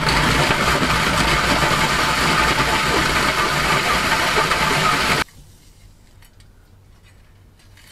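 Cordless drill driving a 125 mm hole saw through the metal top of a wood-burning stove, a loud steady grinding cut that stops abruptly about five seconds in.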